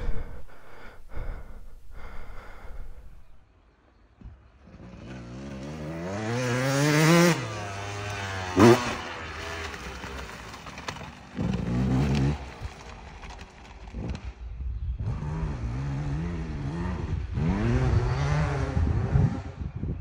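Enduro dirt bike revving in bursts as it is ridden through deep mud, the engine note climbing, cutting back and climbing again several times. A few scrapes and knocks come first, before the engine is heard.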